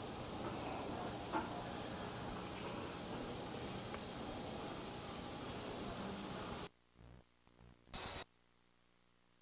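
Insects shrilling in one steady high band over a noisy hiss, cutting off suddenly about two-thirds of the way through. Then near silence, broken once by a short burst of noise near the end.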